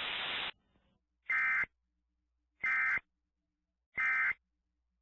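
Three short, identical warbling data-tone bursts about a second apart: the EAS/SAME end-of-message (EOM) code that closes an Emergency Alert System warning. A hiss cuts off about half a second in, before the first burst.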